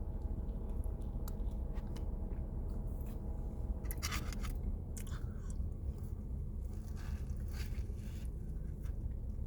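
A person chewing and eating a pumpkin spice cinnamon roll, with wet mouth clicks and smacks scattered through, the busiest stretch about halfway through, over a steady low hum.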